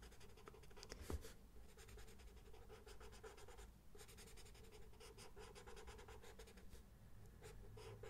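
Faint pencil strokes scratching on sketchbook paper in a quick, continuous run of short strokes. There is a sharper tap about a second in and a brief pause just before the midpoint.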